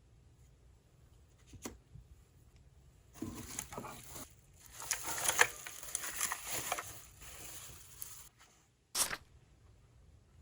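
Packaging being unwrapped and handled: crinkling and rustling of wrapping for about five seconds, with scattered small clicks. A single short sharp noise comes near the end.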